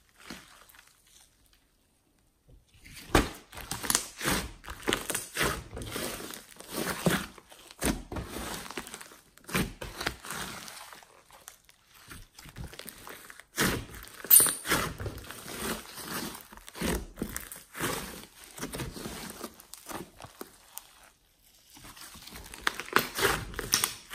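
Hands squeezing and kneading a large lump of glossy slime mixed with clay and glitter, giving dense wet crackling and popping as trapped air pockets burst. It comes in bouts with short pauses, with one louder pop about fourteen seconds in. The first couple of seconds are quiet.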